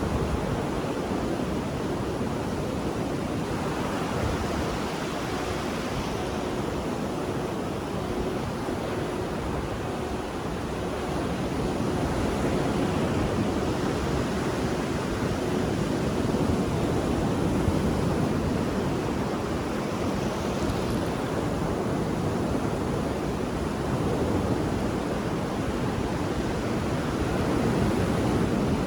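Ocean waves rolling: a continuous wash of surf that swells and eases slowly every few seconds.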